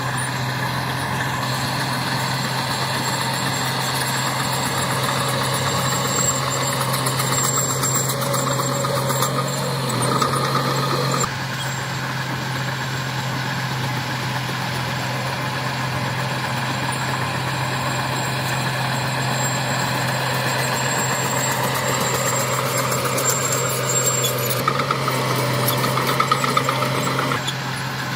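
Heavy diesel construction machinery, dump trucks and a bulldozer, running at a work site: a steady low engine drone under a clattering mechanical din, with a thin high squeak coming and going. The sound changes abruptly a third of the way in and again near the end.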